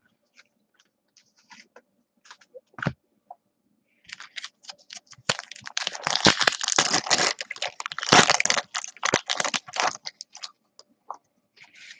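A foil trading-card pack wrapper being torn open and crinkled by hand, after a few light clicks of handling. The dense crackle starts about five seconds in, pauses briefly near eight seconds, and fades out around ten seconds.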